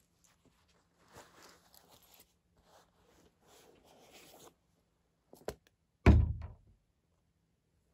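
Fabric bag rustling as a 2014 Mac Mini is taken out of it, a couple of light clicks, then a single loud thunk about six seconds in as the aluminium-bodied computer is set down on a table.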